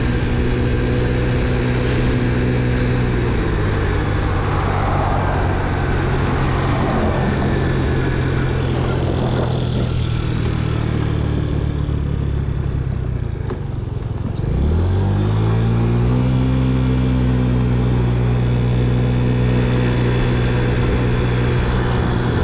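GY6 scooter engine running while riding. It drops back about thirteen seconds in, then revs up to pull away, its pitch rising and settling into a steady cruise.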